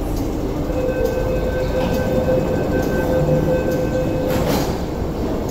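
MTR S-train's Alstom Optonix traction equipment starting the train away: a steady whine of several held tones over a low running rumble, giving way about four seconds in to a short rush of noise as the train moves off.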